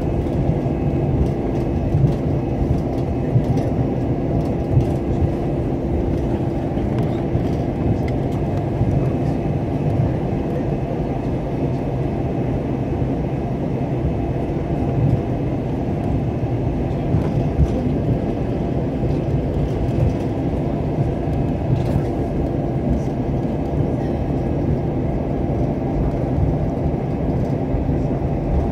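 Airbus A321 cabin noise while taxiing: a steady low rumble of the engines at idle and the airframe, with a few steady hums and occasional light clicks.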